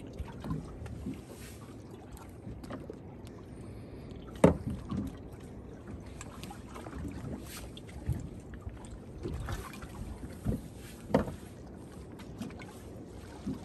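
Low steady wash of sea water and wind around a small drifting boat, with scattered short knocks and clicks; the sharpest comes about four and a half seconds in and another near eleven seconds.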